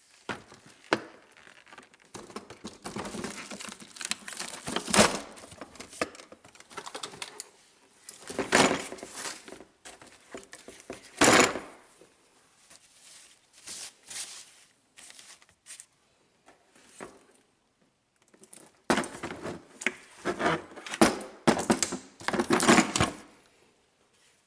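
Plastic crinkling and rustling with clicks and knocks as a tool kit's contents are handled and packed back into its case, coming in irregular bursts with a quieter stretch in the middle.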